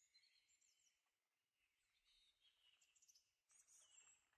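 Faint birdsong: small birds chirping and trilling in short, high calls, a little louder near the end.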